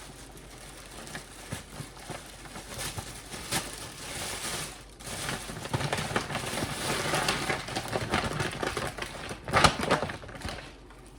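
Bulk bag of rice being handled: crinkling and rustling with many small clicks, busier in the second half, and a sharper knock near the end.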